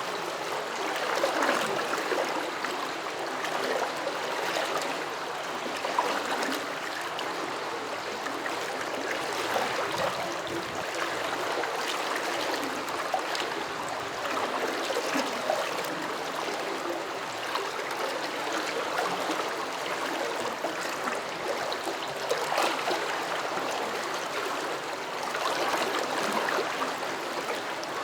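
Water flowing over stones in a small stream, gurgling, rippling and bubbling steadily with small irregular splashes.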